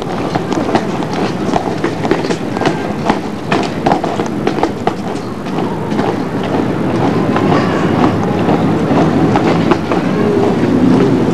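Many soldiers' boots marching in quick time on a paved parade square: a dense clatter of footsteps.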